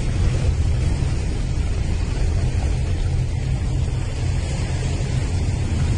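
A boat's engine running, a steady low rumble under an even hiss of wind and sea noise.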